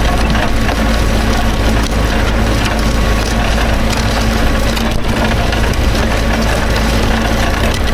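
Tractor engine running steadily at a constant speed, with a low, even hum and no change in pitch.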